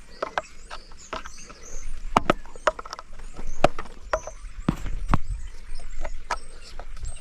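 Irregular clicks, knocks and clanks of hand tools working at the parts of a commercial floor scrubber being taken apart, with a stubborn part resisting.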